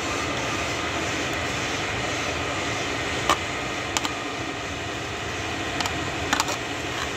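Steady, even background noise with no clear pitch. A few short, sharp clicks and taps come through it about three, four, six and six and a half seconds in.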